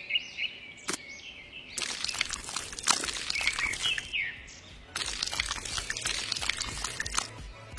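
Birds chirping in short calls over a steady hiss like pouring or splashing water, with many sharp clicks; the background changes abruptly twice.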